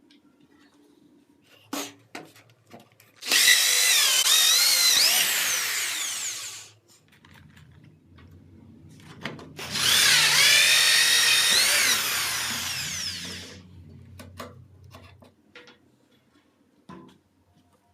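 Electric drill run twice, each time for about three and a half seconds, its whine wavering in pitch as it runs. A low hum lingers briefly after the second run, and there are a few small knocks before and after.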